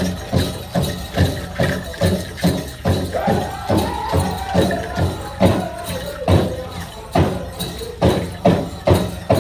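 Powwow drum: a big drum struck in a steady beat, about two and a half strokes a second, by a drum group singing a chicken dance song. The singers' high voices come in about three seconds in.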